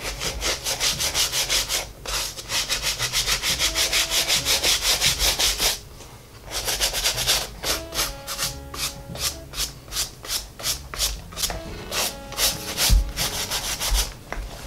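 Bristle shoe brush scrubbing foam cleaner firmly into a white leather loafer in fast back-and-forth strokes, about five a second, with a short break about six seconds in.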